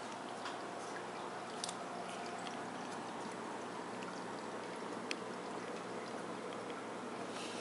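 Steady trickle of water from an AquaClear hang-on-back aquarium filter spilling back into the tank, with a couple of faint clicks.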